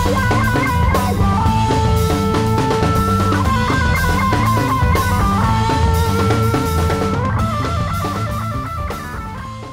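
Background rock music with electric guitar and drums and a steady beat, fading out near the end.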